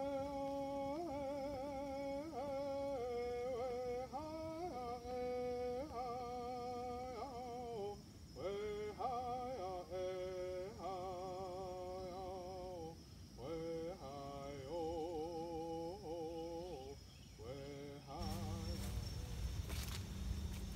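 A man's solo voice singing a song of thanks in a Native language, held notes with heavy vibrato in phrases separated by short breaks. Near the end the singing stops and gives way to rustling and knocks.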